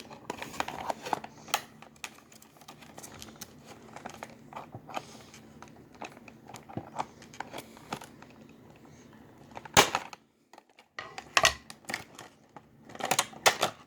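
Action-figure packaging being handled and opened: crinkling and rustling with many small clicks, and a few louder sharp snaps about ten seconds in and near the end.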